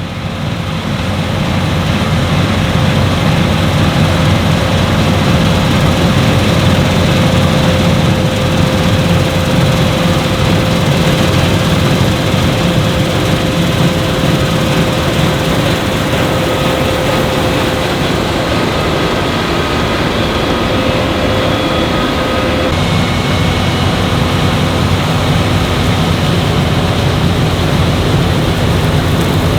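Claas Lexion 8900 combine harvester running while cutting wheat: a loud, steady engine drone with a machinery whine that drops to a lower note about three-quarters of the way through.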